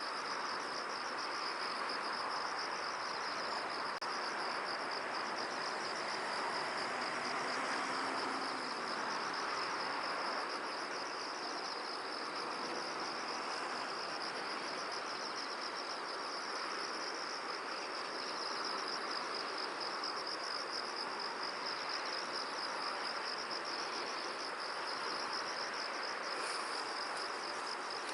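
A high, rapidly pulsing insect trill that carries on without a break, over a steady rushing wind noise.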